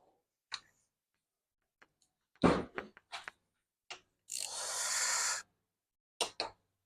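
Hand tools being picked up and handled: a sharp knock about two and a half seconds in, a few light clicks, and a scraping sound lasting about a second near the middle.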